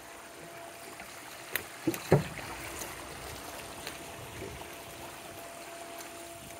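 Steady trickle and splash of water from a backyard swimming pool's water jets and spa spillover, with three quick knocks close together about two seconds in, the last one the loudest.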